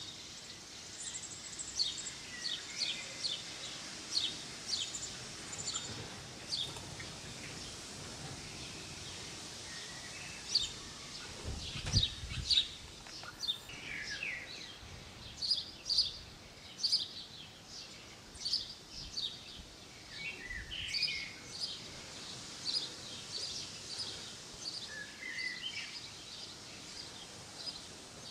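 Small garden songbirds chirping, with short, high calls in quick, irregular runs and a few lower, sliding calls now and then. There is a low thump about twelve seconds in.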